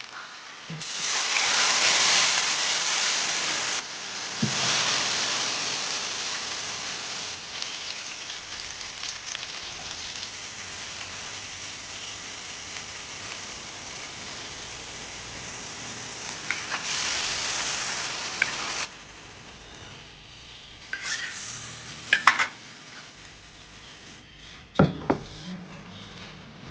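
Food frying in hot oil, sizzling loudly from about a second in and slowly fading, then flaring loud again and cutting off suddenly about two-thirds of the way through. A few sharp knocks of utensils against the pan come near the end.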